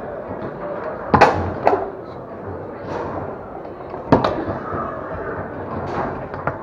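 Foosball being played on a Tornado table: sharp clacks of the ball struck by the men and the rods knocking. There are two loud hits about a second in, another about four seconds in and two lighter ones near the end, over steady background noise.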